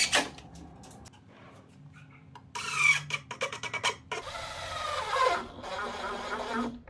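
Drawers on three-stage ball-bearing slides being pulled out and pushed back: the steel runners roll with a rasping sound, whose pitch falls as each stroke slows. It comes twice: a short stroke about two and a half seconds in, and a longer one from about four seconds to near the end.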